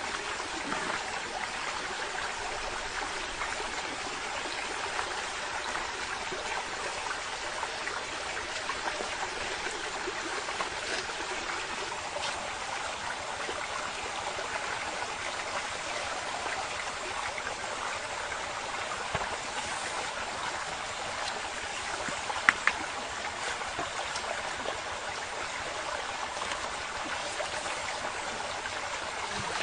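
Steady rush of running stream water, with a couple of sharp clicks about three quarters of the way through.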